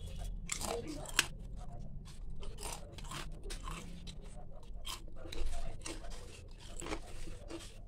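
Crisp fried potato papad breaking and crumbling in the hand: a string of sharp crackles and snaps, with one sharper snap about a second in. The crackle shows the papad is fried crisp.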